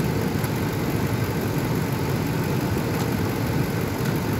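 Vehicle engine idling steadily with the hood open, running on its alternator while the battery's ground cable is being disconnected. A couple of faint ticks from the wrench on the battery terminal.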